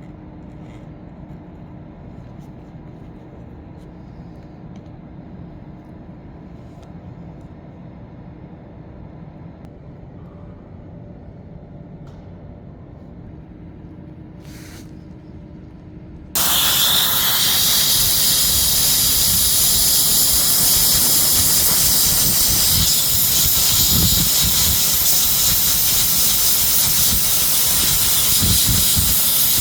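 Low steady background noise, then a loud steady hiss of blown air starts suddenly just past halfway and keeps going: a hot-air plastic welding gun blowing.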